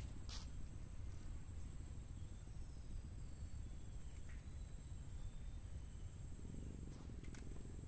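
Insect's steady high-pitched drone over a low rumbling noise, with a few short clicks near the start and again near the end.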